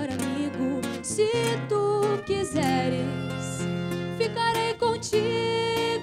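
Live acoustic music: a bowed violin carries a wavering melody over plucked acoustic guitar accompaniment.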